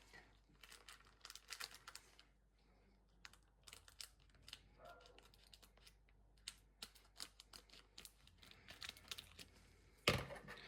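Scissors snipping across the top of a sealed trading-card pack: a scatter of small, quiet clicks with some crinkling of the wrapper. A louder clatter comes near the end.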